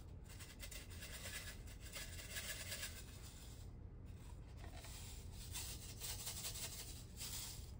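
Faint rubbing and scratching as a 3D-printed plastic diamond-painting tray is handled and tilted.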